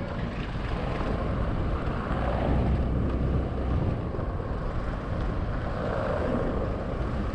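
250cc motorbike running at low speed along a cobbled street: a steady engine sound mixed with the rumble of the tyres over the cobblestones.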